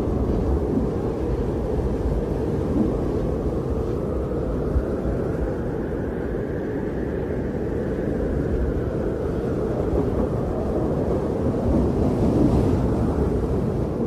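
Blizzard wind blowing and buffeting the microphone: a steady low rumbling noise that swells gently about halfway through.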